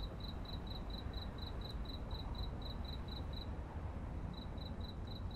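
Cricket chirping: a regular run of short high chirps, about four a second, that stops for about a second midway and then starts again, over a low steady background rumble.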